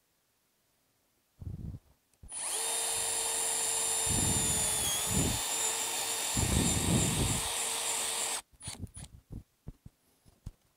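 Cordless drill drilling into the metal tube of a Bimini top frame. After a brief blip, it runs steadily for about six seconds with a high motor whine, dipping briefly in pitch about halfway as the bit loads, then stops. A few light clicks and rattles follow.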